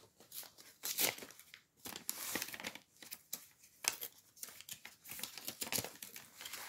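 Brown cardboard parcel box being torn open by hand: a series of short, irregular rips and rustles as its flaps are pulled apart, with crinkling of the plastic sheet it rests on.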